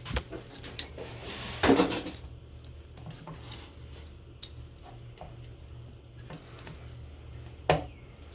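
Metal hand tools and engine parts clinking and knocking as they are handled during an ATV engine's top-end rebuild, with a louder clatter about two seconds in and a sharp knock near the end, over a steady low hum.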